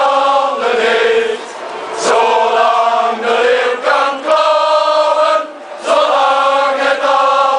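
Crowd singing together in unison, long held notes in phrases with short breaks between them.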